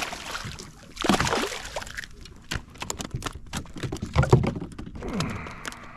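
Hooked speckled trout splashing and thrashing at the surface beside a plastic kayak, with a loud splash about a second in, followed by a run of sharp knocks and clatters as it is brought to the boat and handled.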